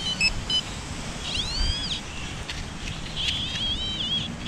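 A few short electronic beeps in the first half-second, as a handheld pinpointer is switched on, then a bird calling twice, each call a high whistle that rises and falls.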